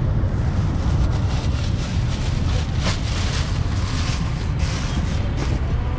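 Steady low rumble of wind buffeting the microphone. A plastic bag crinkles a few times about halfway through and again near the end.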